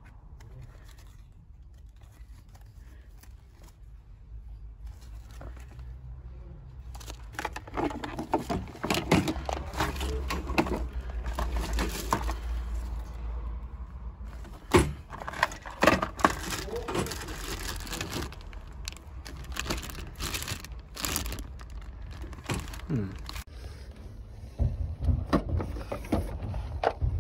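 Clattering and rustling of goods being handled in a wire shopping trolley, with plastic packaging crinkling and several sharp knocks.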